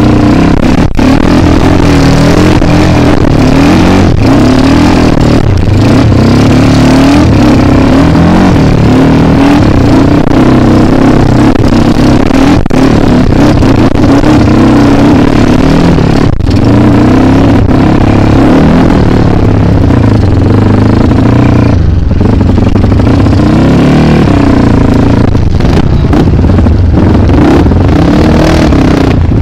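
Dirt bike engine running loud under load, the revs rising and falling as the throttle is worked, with a few brief drops where the throttle is shut.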